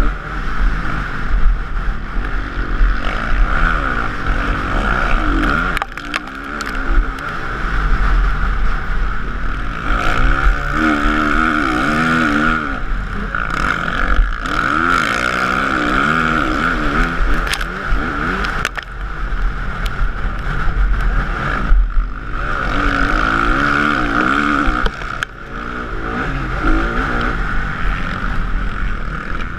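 Motocross bike engine heard on board at race pace, the revs rising and falling over and over as the rider accelerates, shifts and backs off through corners, with wind buffeting the camera microphone.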